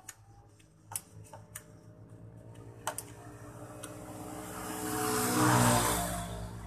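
An engine idling with a steady hum, then revved up into one loud swell that peaks about five and a half seconds in and falls back. A few light metallic clicks from hands working on the carburettor fittings come in the first three seconds.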